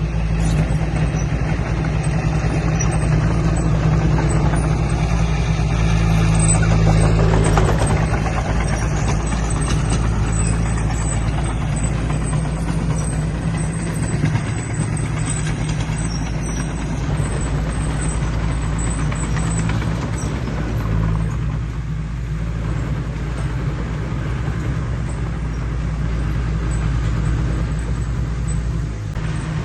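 Heavy diesel engine of earthmoving equipment running steadily under load, a constant low drone with mechanical noise over it.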